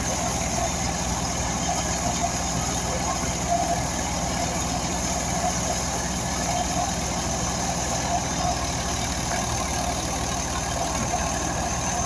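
Tractor's diesel engine running at a steady speed, driving a belt-powered wheat thresher.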